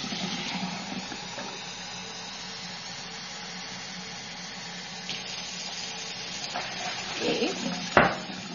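Kitchen tap running in a steady hiss. A sharp knock sounds near the end.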